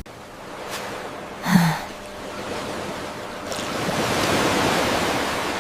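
Ocean surf washing on a beach, with one wave swelling up and easing off a few seconds in. A short, louder sound breaks in about a second and a half in.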